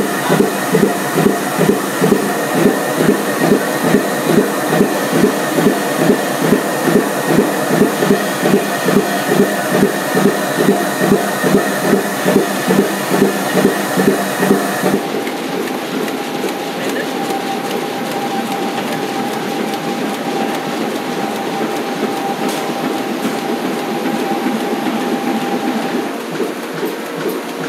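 Banknote printing press machinery running with a quick, regular clatter and a steady whine. About halfway through it changes abruptly to a steadier mechanical noise with a fainter, lower whine.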